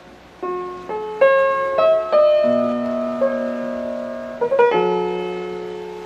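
Slow piano music: notes and chords struck one after another and left ringing, a quick flurry of notes about four and a half seconds in, then a held chord fading away.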